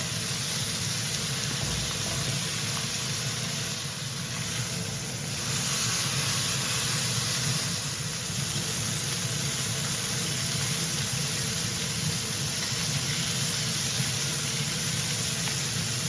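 Skirt steak searing in a very hot pan with butter, garlic and rosemary, a steady sizzle with a low hum underneath.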